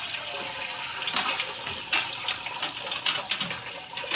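Wort pouring and splashing steadily out of a lifted mash grain basket back into the brewing kettle.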